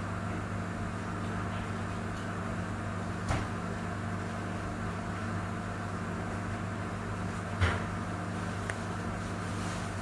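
Steady low mechanical hum, with two sharp knocks, one about three seconds in and a louder one near eight seconds.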